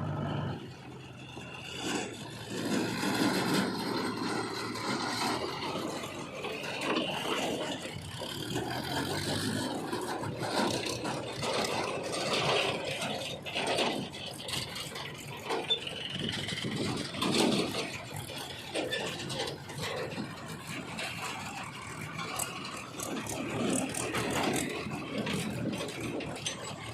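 Earth-moving machinery at work: an engine running under a continual, uneven clatter of scraping and rattling.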